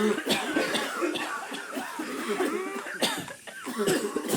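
Incessant human coughing, one cough running into the next with hardly a pause, several coughs overlapping at once.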